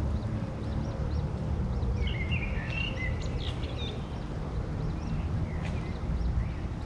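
Outdoor pond-side ambience: a steady low rumble with small birds calling, a brief cluster of chirping calls about two to three seconds in.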